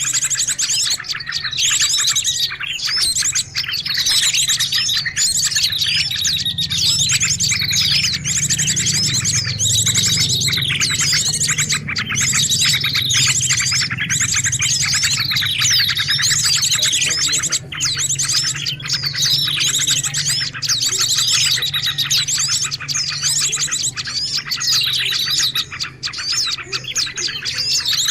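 Songbird song in a continuous, dense chatter of rapid chirps and trills, played as a masteran training recording for teaching caged songbirds new phrases. A low steady hum runs underneath and is strongest about ten seconds in.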